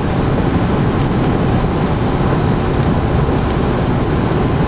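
Steady road and engine noise of a moving car heard from inside the cabin, with a few faint ticks.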